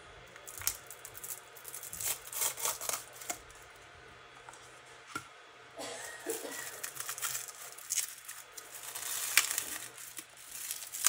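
Plastic packaging rustling and crinkling as it is handled, with scattered clicks and light knocks of small plastic pots, busier in the second half.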